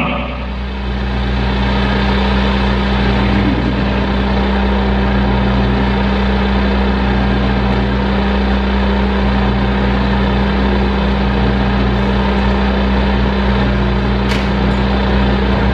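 Steady electronic drone from a WASP synthesizer: unchanging low hum tones under a dense, even hiss-like texture. A single sharp click sounds about two seconds before the end.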